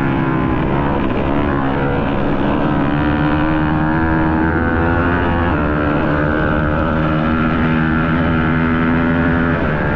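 Racing motorcycle engine on an ice-race track, heard on board and run hard at high revs. Its pitch drops about halfway through as the throttle eases and then climbs again.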